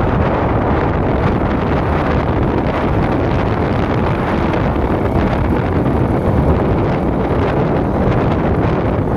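Strong wind buffeting the microphone on a moving motorcycle: a steady, loud rush.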